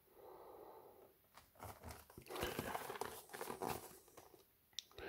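Faint rustling and scraping of a powerbank's cardboard retail box being handled and turned over in the hands, with a few light clicks and taps.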